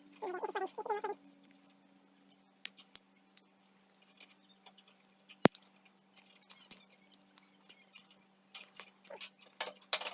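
Scattered small clicks and rattles of a fluorescent light fixture's parts being handled and fitted, with one sharp click about five and a half seconds in and a run of light clicks near the end. A steady low hum lies under it.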